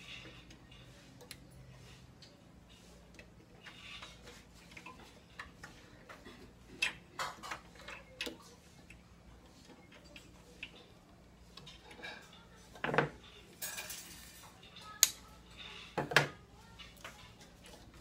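Scattered small clicks and light metallic clinks of hands working at the wiring and parts inside an opened microwave oven and picking up multimeter test leads. Sharper clicks come in the last few seconds.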